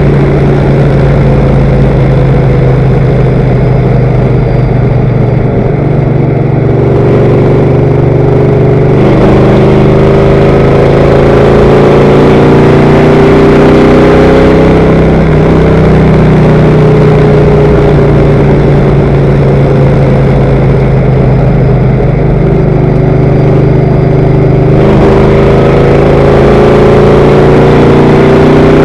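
Loud race car engine heard from inside the car at sustained high revs around an oval, its pitch sagging and climbing gently a few times through the turns, over wind and road noise.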